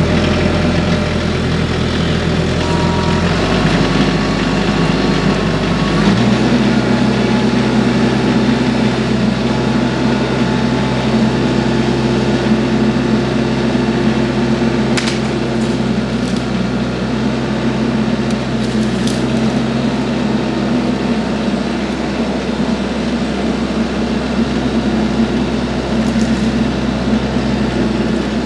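TYM compact tractor's diesel engine running steadily under load, throttled up about six seconds in, while the hydraulic tree shear works. A few sharp cracks of wood breaking come partway through, as a small tree or limbs are cut.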